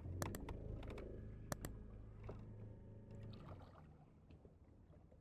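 A small electric motor on a fishing boat hums steadily, stopping about three and a half seconds in, with a few sharp clicks in the first second and a half.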